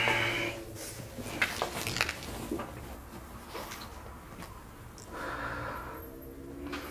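Light handling noises: a few small clicks and knocks in the first two seconds, then a soft rustle about five seconds in.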